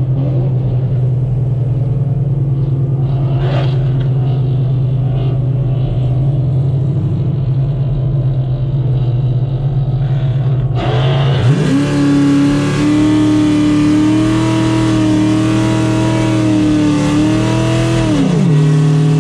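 Car engine and exhaust heard from inside the cabin: a steady low drone while cruising at highway speed, then about eleven seconds in the throttle is floored, the engine note jumps up and holds high and loud for about six seconds before dropping back as the driver lifts off.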